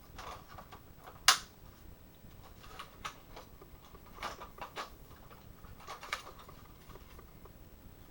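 Hard plastic toy jet parts clicking and clattering as they are handled and fitted together, with one sharp click about a second in and a few lighter ones later.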